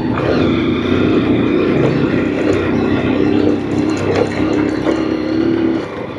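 Motorcycle engine running at a steady pitch under way on a rough dirt road, mixed with road and wind noise. The engine note eases off shortly before the end.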